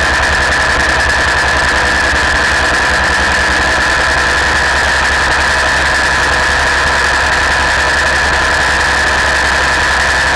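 Gyroplane's engine and propeller running steadily in flight: a constant drone with a high whine and a fast low throb.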